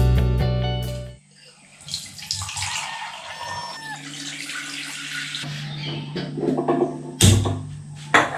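Guitar music stops about a second in. Kitchen sounds follow: water running or pouring for a few seconds, then steel utensils and pots clattering against the counter, with a low steady hum beneath.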